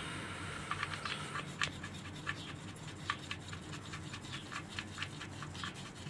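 Oil drain bolt being threaded back into the oil pan by hand: small irregular metal clicks and scratches, a few a second.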